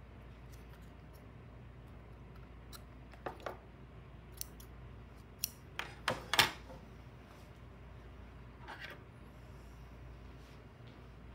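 Metal scissors snipping yarn and being handled, heard as a series of sharp clicks and clacks. The loudest come in a cluster about six seconds in, as the scissors are set down on the wooden table.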